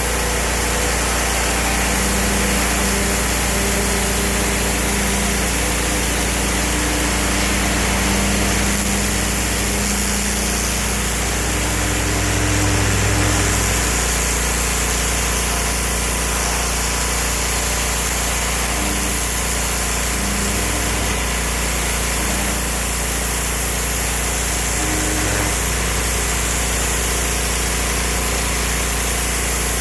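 Petrol pressure washer running steadily, its engine note shifting slightly now and then over a constant hiss.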